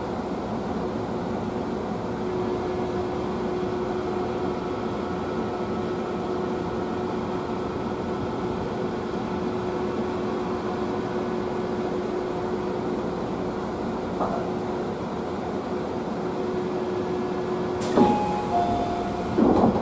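Cabin running noise of a Tobu 30000 series commuter train under way: a steady rumble with a faint held tone. Near the end comes a sharp click, then a short tone that steps down from one pitch to a lower one.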